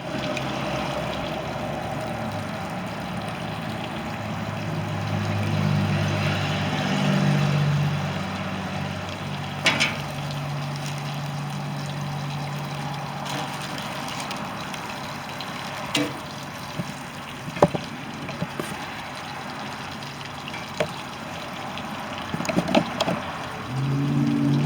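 Steady running or splashing water, with a low hum through the middle and a few sharp clicks.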